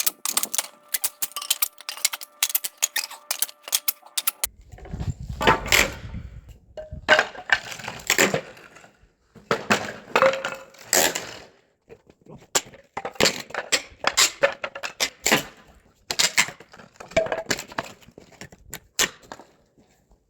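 Wooden pallet boards being pried and knocked apart: a dense run of rapid clicks for the first few seconds, then heavier, spaced cracks and knocks of wood.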